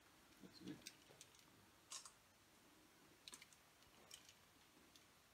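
Near silence, broken by a few faint, scattered clicks and taps.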